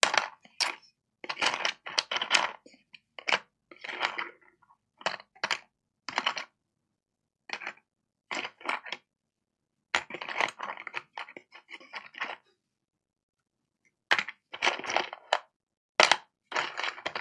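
Rummaging through a cardboard box of laptop charger tip adapters: small plastic and metal connectors clattering against each other in irregular bursts, with a pause of over a second about two-thirds of the way in.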